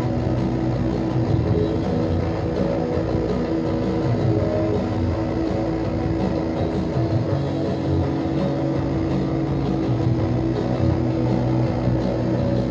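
Live shoegaze band: distorted electric guitar and bass playing a dense, steady wash of held chords at an even, loud level.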